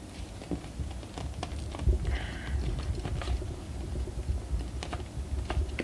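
Irregular small clicks and taps with low handling thumps as a graphics card is worked on by hand during disassembly, with a brief scrape about two seconds in.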